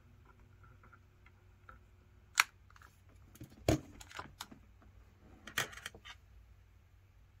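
A faint steady hum over the first few seconds, then several short, sharp clicks and knocks spread across the middle: a soldering gun taken off the joint and set down, and a printed circuit board picked up and handled on a workbench.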